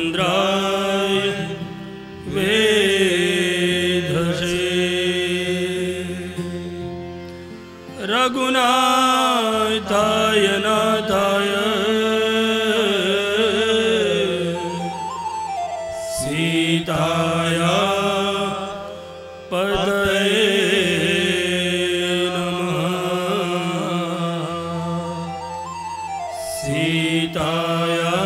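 A man singing a Hindu devotional chant in long, drawn-out, ornamented phrases with short breaths between them, over a steady low accompaniment.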